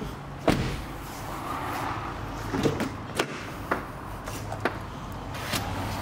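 BMW 218 Active Tourer door being opened: a sharp latch click about half a second in, then several lighter clicks and knocks, over a steady low hum.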